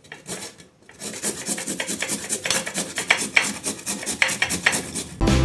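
Fresh ginger root being rubbed quickly back and forth on a hand grater, a dense rasping scrape in rapid, uneven strokes that begins about a second in. Background music comes in at the very end.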